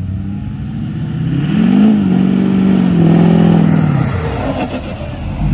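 Lifted GMC Sierra pickup's engine revving as it accelerates away. The pitch climbs about a second and a half in, holds, then drops near four seconds.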